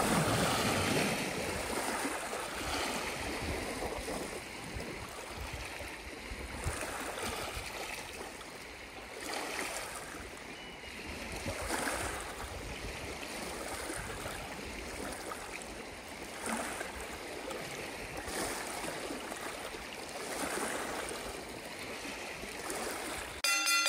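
Small lake waves lapping at the shallows and around wading legs, swelling and easing every few seconds. A musical chime comes in just before the end.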